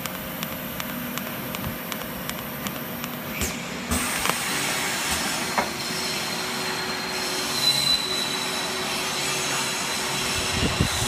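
Welding arc of an automatic straight seam welding machine hissing with regular crackling ticks for the first three and a half seconds, then the arc stops and the machine's torch carriage runs along its beam with a steady high-pitched whine and a few clicks.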